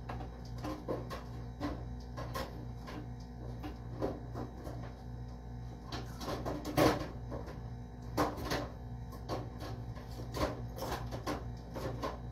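Irregular knocks and clicks of things being handled, over a steady low hum; the loudest knock comes about seven seconds in.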